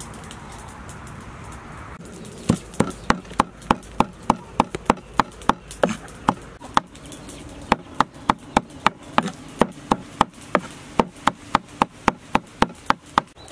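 Cleaver chopping raw fish into a paste on a wooden chopping block: a steady run of sharp knocks, about three a second, starting about two seconds in, with a short pause near the middle.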